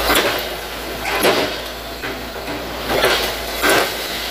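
A Hitachi hydraulic excavator pushes over an oil palm, with four loud bursts of tearing and crashing as the trunk and roots break out of the soil and the fronds come down. The excavator's engine hums steadily underneath.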